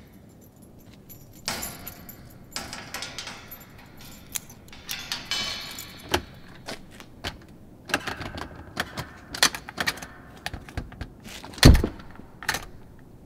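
Metal rattling, clicking and scraping as a wire-mesh cage door and then a locked metal door and its handle are tried, in irregular bursts of knocks and rattles. A single heavy thud comes shortly before the end.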